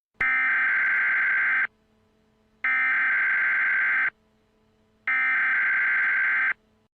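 Emergency Alert System SAME header: three identical bursts of harsh digital data tones, each about a second and a half long with about a second's pause between. This is the coded header that opens an EAS alert, ahead of the attention tone.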